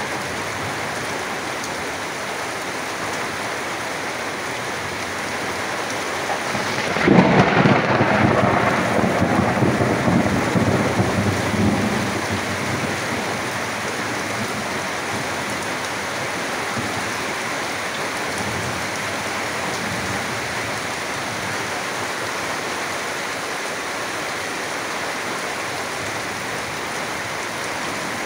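Heavy monsoon rain pouring steadily on foliage and corrugated tin roofs. About seven seconds in, a loud clap of thunder breaks and rumbles away over the next few seconds.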